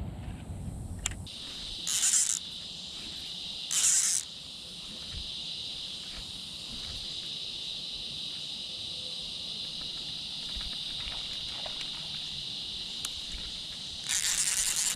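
Steady shrill chorus of insects, a continuous buzz starting about a second in, broken by three short hissing bursts: two brief ones around two and four seconds in and a longer one near the end.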